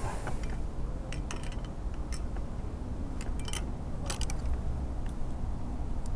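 Climbing hardware clinking as a rope is handled: scattered sharp metallic clicks from a carabiner and a metal pole, in small clusters a second or so apart, over a steady low rumble on the helmet-mounted microphone.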